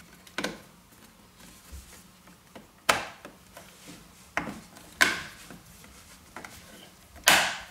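Sharp plastic clicks and knocks from handling the Tesla Model X rear-view mirror and its housing, five distinct ones a second or two apart, the loudest near the end.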